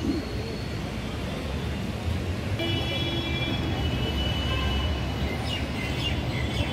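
Steady low rumble of city road traffic, with a brief vehicle horn toot near the middle.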